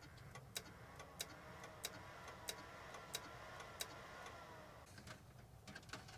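Faint regular ticking, about one and a half ticks a second, from a Macintosh IIx switching on and cutting out again and again, over a faint whine that fades out near the end. The machine only does this with its SCSI hard drive connected, which the owner puts down to a likely blown fuse on the board.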